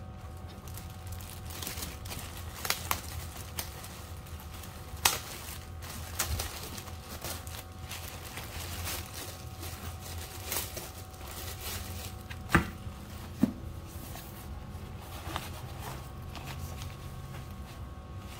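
Plastic packaging and bubble wrap crinkling as they are handled, with scattered sharp crackles over a steady low hum.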